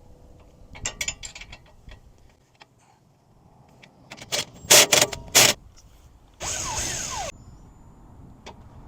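Hand tools working on the rear suspension bolts of a car: scattered metallic clinks, a cluster of sharp loud clanks about four to five and a half seconds in, then a steady mechanical whir lasting about a second.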